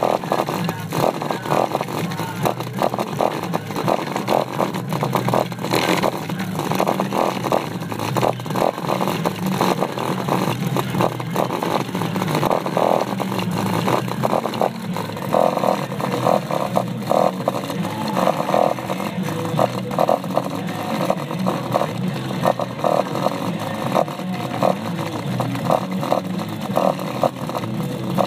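Lightning Audio subwoofer playing in free air, overdriven by a Hifonics BRZ 1700.1 amplifier far beyond its 300 W rating, giving loud, harsh, distorted buzzing bass with rapid crackling. The sound turns more strongly pulsing about halfway through.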